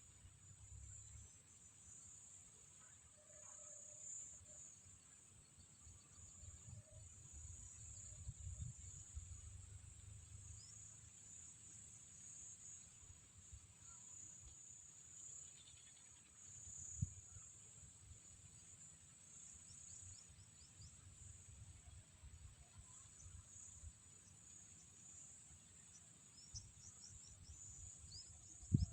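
Faint outdoor ambience: a steady high-pitched insect buzz runs throughout over a low, uneven rumble, with one soft knock about halfway through.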